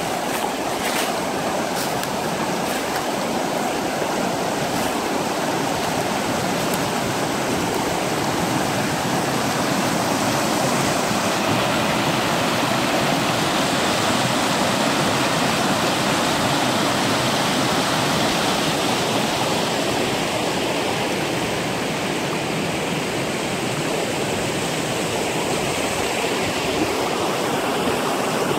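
Shallow river rushing over rocks in small rapids: a steady noise of splashing, churning water, growing brighter and hissier for several seconds midway.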